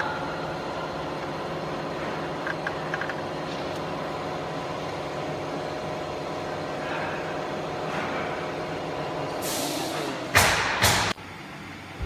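Steady machine hum with several pitched tones. Near the end a hiss rises, then two loud bursts of hissing noise come and cut off abruptly.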